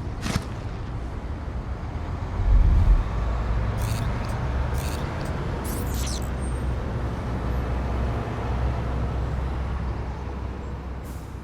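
Steady low rumble like a running vehicle engine, with a heavy low thump about two and a half seconds in and a few short sharp scuffs or steps a little later.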